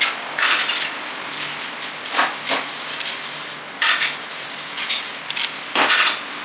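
Steel ring gear bolts clinking and rattling against a Dana 30 differential carrier and ring gear as they are set in and threaded by hand, in a handful of short, irregular bursts.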